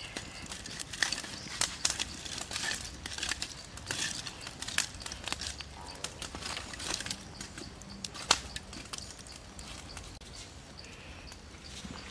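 Charcoal fire crackling, with irregular sharp pops.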